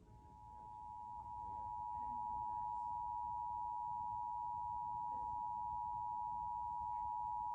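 Emergency Alert System attention signal: two steady tones sounded together, just under 1 kHz (853 and 960 Hz). It grows louder over the first second or two, then holds level. It marks a nationwide EAS test being broadcast over TV.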